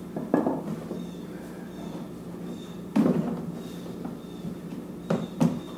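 Plastic tub being shifted and bumped against a wooden motor stand: a few short knocks and thuds, one near the start, one about three seconds in and two close together near the end.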